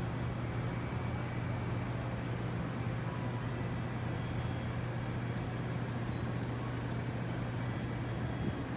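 City street ambience: steady road traffic noise with a constant low hum.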